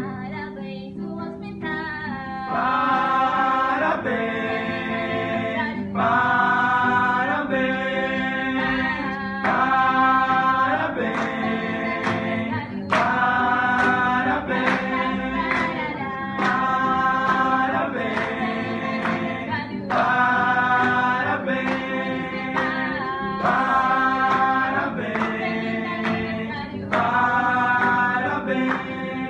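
A small group of men and women singing a song together in phrases of a few seconds, with an acoustic guitar strummed along beneath the voices.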